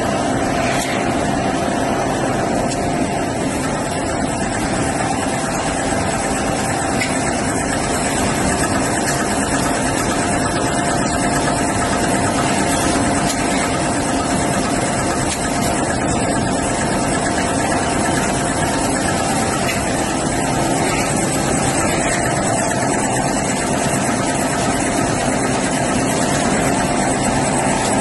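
Toilet paper and kitchen towel converting line with nested embossing lamination running steadily: a continuous mechanical rush of noise with a constant hum-like tone, unchanging in pace.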